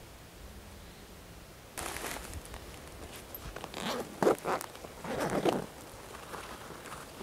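Zipper on a fabric backpack pocket being pulled open in several short rasps, with fabric rustling. It starts about two seconds in, and the loudest pulls come near the middle.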